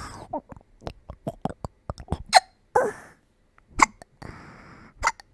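A woman hiccuping repeatedly: about four sharp hiccups, each a second or more apart, with breaths between them.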